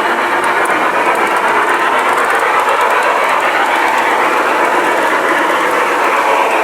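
G-scale model train running along the garden track close by: a steady, even rolling noise of wheels and drive.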